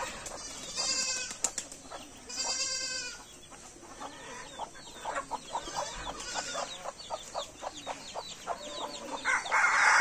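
Farmyard chickens and goats: two short goat bleats in the first three seconds, then a run of hens clucking, and a loud, held fowl call starting near the end.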